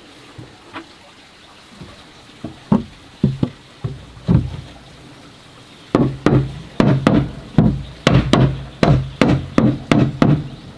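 Hammer nailing wooden boards onto a wooden frame. There are a few separate knocks in the first four seconds, then a steady run of blows, about three a second, from about six seconds in.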